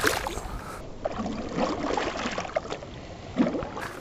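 Water splashing irregularly as a hooked bass thrashes at the surface beside a fishing boat's hull, the loudest splash about three and a half seconds in.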